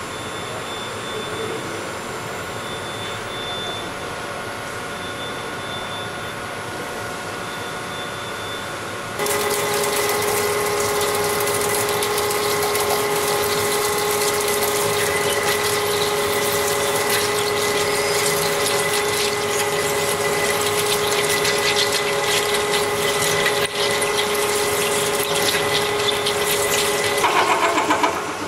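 CNC plate drilling machine running with a steady hum, then about nine seconds in, a louder steady whine over spraying coolant as its large rotating cutter bores into the steel plate. Near the end the whine stops in a short noisy flurry.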